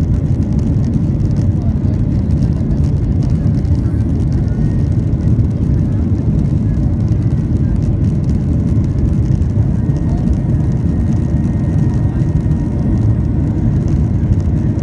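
Steady, loud low rumble of a Boeing 737-800's CFM56-7B engines and rushing airflow, heard inside the passenger cabin during the climb after takeoff.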